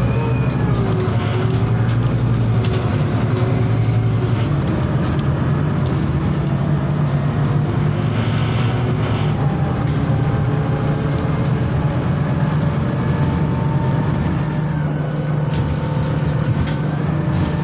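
Scania CityWide LF 18 articulated city bus with a compressed-natural-gas engine, heard from a passenger seat while under way: a steady low engine and road drone, with whining tones that slowly rise and fall in pitch as the bus speeds up and slows.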